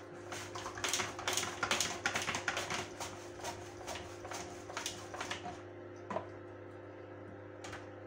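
Apple half being sliced on a Tupperware mandoline: quick back-and-forth strokes of the plastic food holder over the blade, a run of rapid clicking scrapes that stops about five seconds in.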